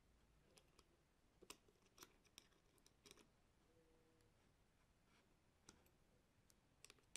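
Faint, scattered metallic clicks and ticks of an Allen key and wrench working on a 3D printer's V-wheel bolt and nut as the wheel is tightened onto the Y-axis carriage.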